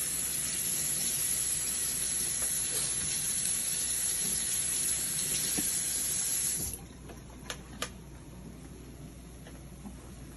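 Tap water running steadily, then shut off sharply about seven seconds in, followed by two light clicks.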